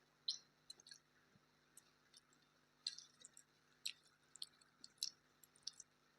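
A person chewing food with the mouth, faint wet smacks and clicks coming irregularly, a few louder ones about a second apart.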